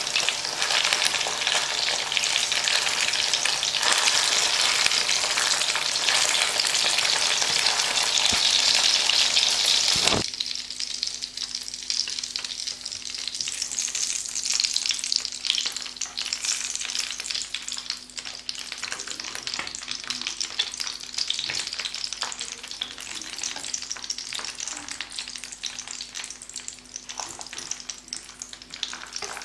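German sausages sizzling in hot oil in a frying pan, with a few clicks as tongs turn them. The sizzle is loud and dense for about the first ten seconds, then drops suddenly to a quieter, sparser crackle.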